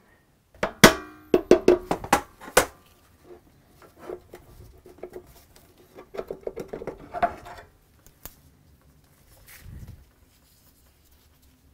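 Sharp metallic clicks and clinks, several close together in the first few seconds and one ringing briefly, then lighter tapping and rattling: tools and metal parts being handled as a small engine is taken apart.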